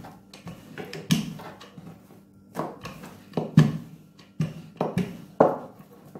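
A wooden rolling pin rolling out dough on a plastic-covered table: a run of irregular strokes and knocks as the pin is pushed back and forth. The dough round is lifted and turned near the end.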